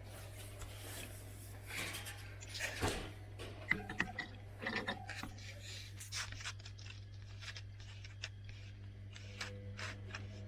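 Zanussi IZ 16 S front-loading washing machine running its rinse: a steady low hum with irregular rubbing, scraping and clicking from the drum, busiest a few seconds in.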